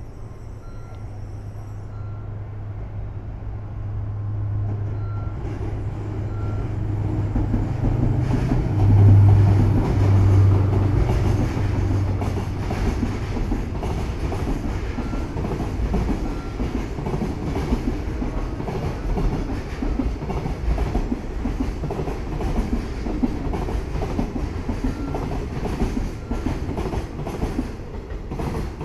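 A JR Freight DF200 diesel-electric locomotive approaches and passes with a steady low engine drone, loudest about nine seconds in. A long string of container wagons follows, rumbling past with rapid clicks from the wheels over the rail joints.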